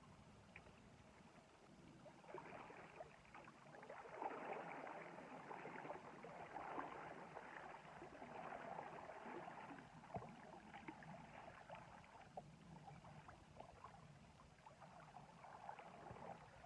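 Faint water sloshing and gurgling with small crackles, swelling about two seconds in and easing off toward the end.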